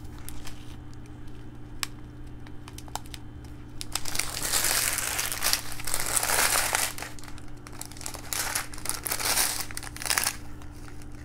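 Small plastic bags of diamond-painting drills crinkling as they are handled. There are scattered rustles and clicks at first, then steady crinkling from about four seconds in until shortly before the end.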